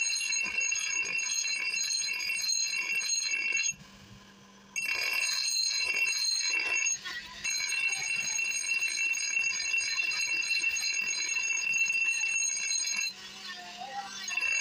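Bench grinder's abrasive wheel grinding the edge of a forged steel adze (basula) blade: a steady, high-pitched ringing whine while the steel is pressed to the wheel. The blade is lifted off about four seconds in, briefly around seven seconds, and again near the end, leaving only the grinder's low hum.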